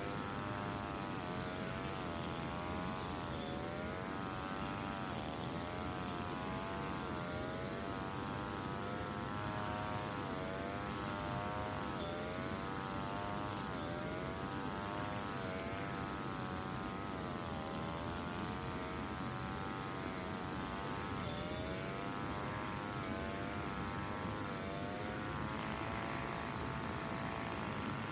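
Two-stroke brush cutter engine running at high speed, its pitch dipping and recovering every second or so as the blade cuts through grass, then holding steady near the end.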